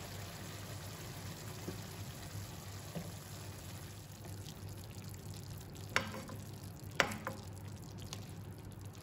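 Beef and broccoli stir-fry sizzling softly in a nonstick wok, then stirred with a wooden spatula, which knocks sharply against the pan twice, about a second apart, past the middle.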